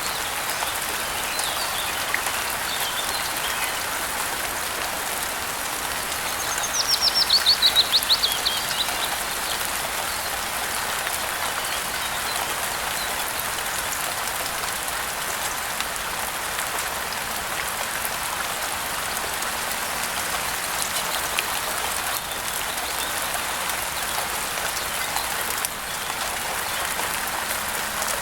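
Steady rain falling, with a bird singing a fast descending trill of about a dozen notes a quarter of the way in, and a few faint chirps before it.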